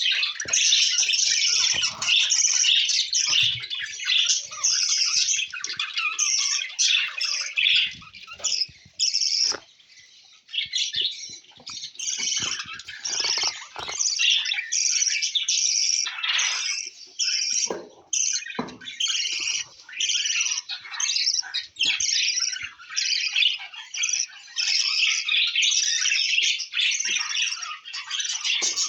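Budgerigars chirping and squawking in a dense, almost continuous high-pitched chatter, with a brief lull about ten seconds in.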